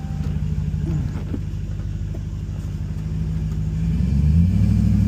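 Edelbrock-supercharged 5.7 Hemi V8 of a Ram 1500 pickup heard from inside the cab, running at a low steady note, then getting louder and rising in pitch about four seconds in as the throttle opens.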